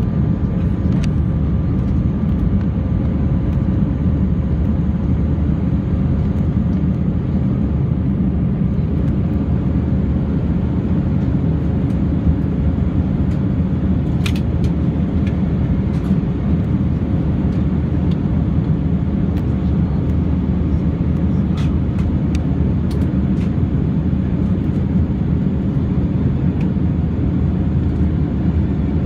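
Steady cabin noise inside an Airbus A319 climbing after takeoff: an even, deep engine and airflow roar with a faint steady hum, and a few faint clicks.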